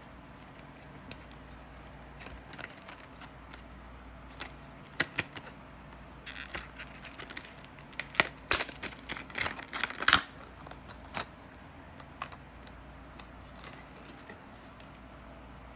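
Irregular small clicks and taps, thickest about six to ten seconds in, over a faint steady hum.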